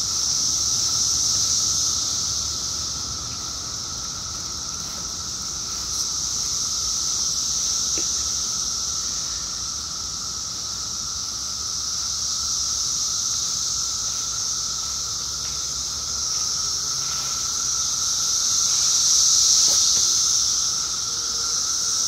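Dense chorus of Brood X periodical cicadas: a steady high hiss with a lower, thinner steady whine beneath it, calls of more than one kind layered together. The chorus swells and fades gently and is loudest near the end.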